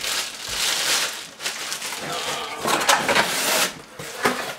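Clear plastic packaging bag crinkling and cardboard rustling as packaging is handled. The rustling comes in two spells, one at the start and a second, louder one a little past the middle.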